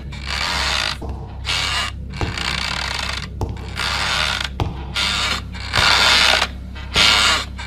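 Trolley rattling on its wheels as it is pushed, in repeated bursts of rattling with short pauses between them, over a steady low hum.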